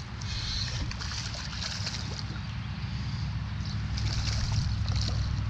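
Water splashing and sloshing as a hooked largemouth bass thrashes on the line, in two spells, over a steady low rumble.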